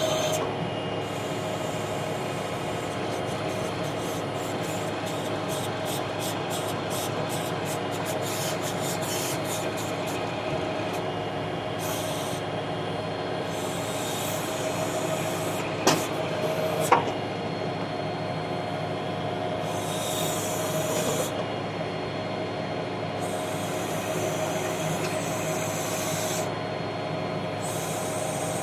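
Tractor engine running steadily with the PTO backhoe's self-contained hydraulic system working, a steady whine under it and a higher hiss that comes and goes several times as the control levers are worked. Two sharp clanks come a little past halfway.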